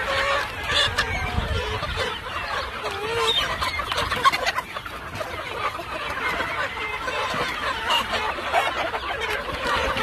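A large flock of brown-red gamefowl chickens clucking all at once, many short calls overlapping, as they crowd around a feed bucket.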